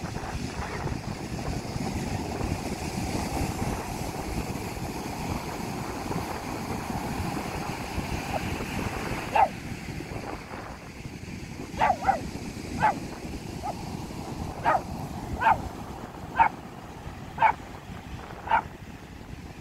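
Ocean surf rushing steadily, and from about halfway in a dog barking in short single barks, roughly one a second.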